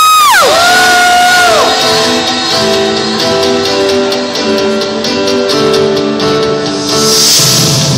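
Recorded dance-pop track played over a venue sound system: a held electronic tone drops steeply in pitch in the first second, followed by a short tone that also falls away, then a plucked acoustic-guitar riff takes over, with a swell near the end.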